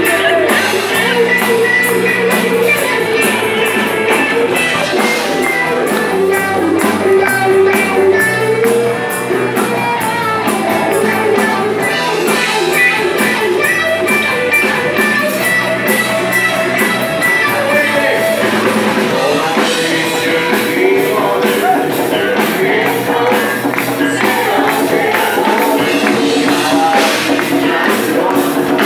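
Live rock band playing loud, with electric guitars, bass guitar and a drum kit.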